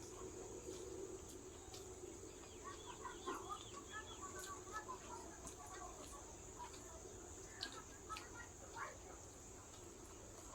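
Quiet eating sounds: small clicks and mouth noises, with clusters of short chirping calls from about two and a half to five seconds in and again around eight seconds, over a faint steady hum.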